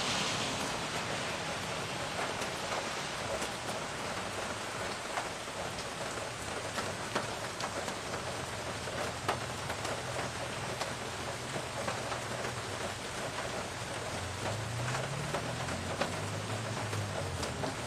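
Steady rain falling on a wet street and yard, with many single drops ticking close by. The tyre hiss of a car on the wet road fades out in the first second, and a faint low hum comes in near the end.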